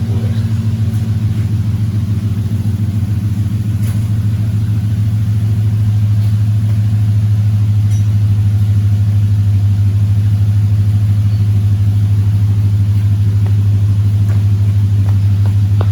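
A car engine idling with a deep, steady rumble that gets a little louder about six seconds in.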